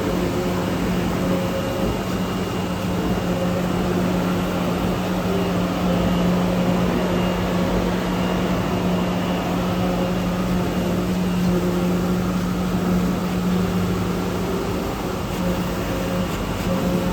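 CNC oscillating knife cutting machine running: a steady mechanical hum with a constant low drone.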